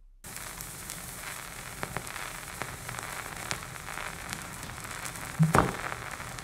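Vinyl record surface noise from a turntable stylus riding the groove: a steady hiss with scattered crackles and clicks, and one louder pop about five seconds in.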